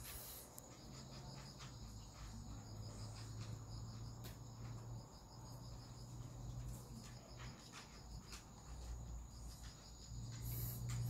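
Crickets chirring steadily in the background, a fine rapid pulsing with no pauses. There are scattered faint clicks and a low hum that comes and goes.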